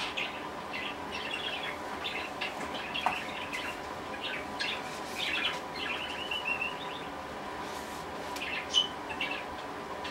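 Small birds chirping and tweeting in short, scattered calls, with a brief quick run of repeated notes about six and a half seconds in.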